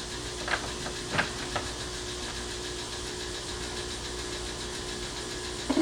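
A few light clicks, three in the first two seconds and one near the end, as deadbolt lock parts and a small screw are handled and lined up, over a steady low hum.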